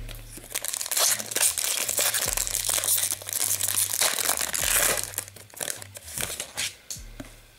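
Foil wrapper of an Upper Deck hockey card pack crinkling and tearing open in the hands. It makes a dense crackle for about five seconds, then dies down to fainter handling rustle near the end.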